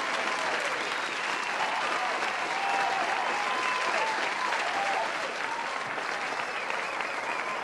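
An audience applauding steadily, with scattered cheers and whoops over the clapping.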